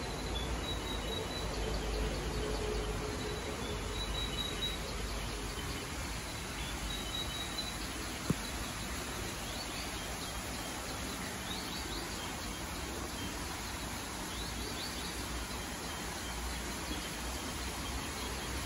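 Faint high chirping calls, short and scattered, over a steady background hiss, with one sharp click about eight seconds in.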